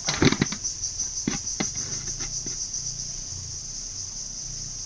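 Steady high-pitched insect chirring. Over it, in the first couple of seconds, a few knocks and scrapes of an aluminium pot against an aluminium platter as cooked rice is tipped out.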